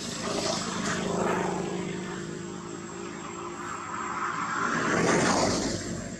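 An engine droning steadily, swelling louder about a second in and again near the end.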